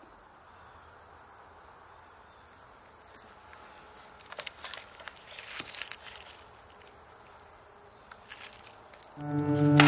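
Steady high insect trill with a few scattered footsteps. About nine seconds in, loud music with held chords starts and drowns it out.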